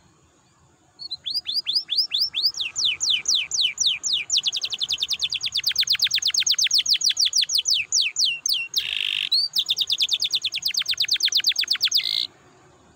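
Domestic canary singing. After about a second of quiet it gives a run of sweeping notes that speeds up into long, rapid rolling trills. A short harsh buzzy note breaks the trills, then they resume and stop abruptly near the end.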